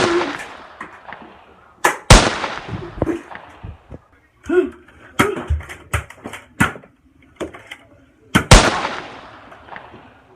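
Dubbed-in gunshot sound effects: three loud bangs with long echoing tails, one right at the start, one about two seconds in and one near the end. Smaller sharp knocks and short voice sounds fall in between.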